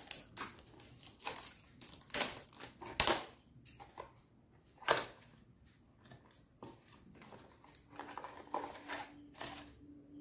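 Small cardboard box being opened by hand: irregular scrapes, clicks and tearing of cardboard flaps, then paper rustling as a leaflet is pulled out.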